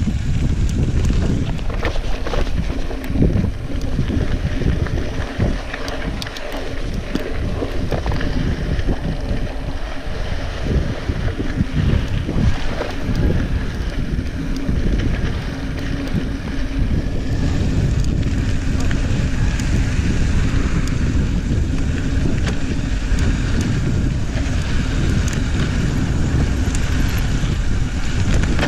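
Wind buffeting the microphone of a chest-mounted action camera on a moving mountain bike, over the crunch of tyres on a dry dirt and gravel trail and frequent clicks and rattles from the bike.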